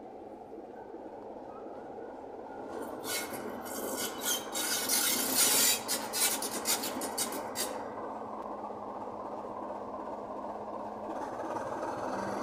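Class 27 diesel locomotive's Sulzer six-cylinder engine running as it rolls slowly in and draws to a halt. From about three to eight seconds in there is a run of harsh metallic scraping and clattering from the wheels and brakes, the loudest part, and a faint brake squeal comes near the end.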